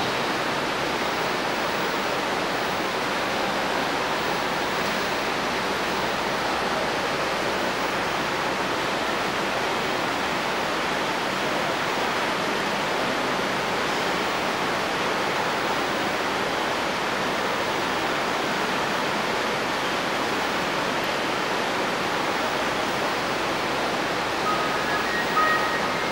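A steady, even rushing noise with no pitch or rhythm, holding the same level throughout. A few short pitched notes sound near the end.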